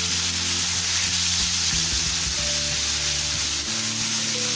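Ground onion paste sizzling steadily as it sautés in hot oil in a pan on a medium-low flame.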